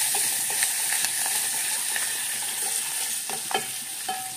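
Halved green chillies sizzling in hot oil tempered with mustard seeds, stirred with a metal spoon that clicks against the steel pot now and then. The sizzle dies down a little near the end.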